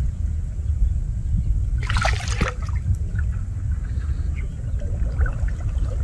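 Water splashing briefly about two seconds in as a man wades and works a gill net in a muddy stream, with smaller splashes and drips after it, over a steady low rumble.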